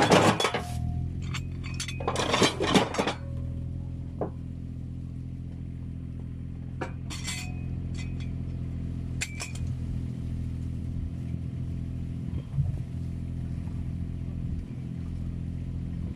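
Steel formwork parts clinking and clanking against each other in a few short clusters during the first ten seconds, with a brief metallic ring after each. Underneath is the steady running of a diesel engine, most likely the Kubota KX019-4 mini excavator's.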